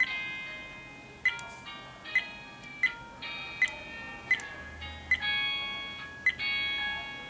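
Background electronic music: sustained synth chords that change every second or so, each change marked by a sharp short hit.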